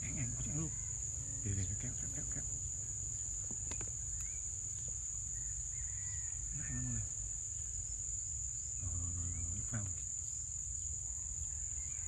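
Insects trilling in one steady, high-pitched drone over a low background rumble.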